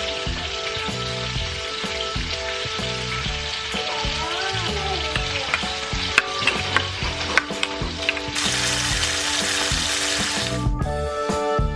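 Fish frying in hot oil: a steady sizzle with sharp pops and crackles about six seconds in. About two-thirds of the way through the sizzle turns louder and brighter, then cuts off abruptly near the end. Soft background music plays underneath.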